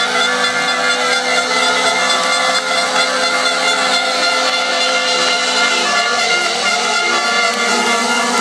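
Several long, steady horn tones sounding together at different pitches over crowd noise, some of them stopping about six seconds in.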